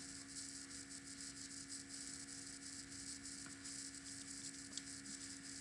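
Low steady electrical hum with faint hiss: quiet room tone.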